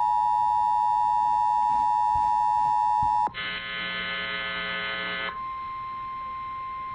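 Emergency Alert System warning tones from a weather alert broadcast. A loud steady alert tone cuts off about three seconds in. A harsh two-second buzz follows, then a fainter steady tone.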